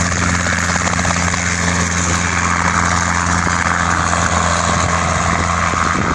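Robinson R22 helicopter taking off and flying away low: the steady drone of its engine and two-bladed rotor, whose low hum falls away near the end as it moves off.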